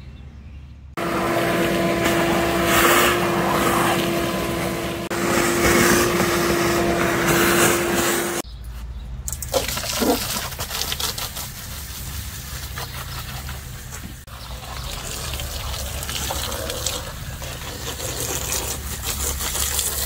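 A shop vacuum runs with a steady whine, starting about a second in and cutting off about eight seconds in. Then a garden hose spray nozzle jets water down inside the opened condenser unit, splashing onto the compressor and base pan.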